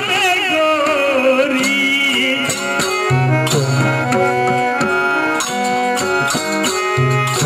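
Gujarati devotional raas song: a man sings over harmonium and tabla for the first couple of seconds, then the voice drops out and the harmonium and tabla play an instrumental passage in a steady rhythm, with deep bass-drum strokes from the tabla.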